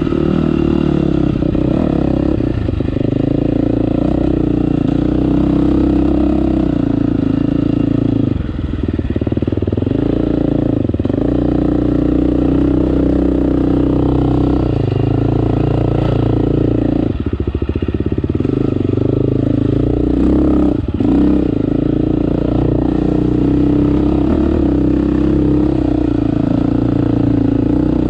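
2018 KTM 350 XC-F's single-cylinder four-stroke engine running steadily as the dirt bike is ridden along a dirt track, the throttle easing off and coming back on a few times.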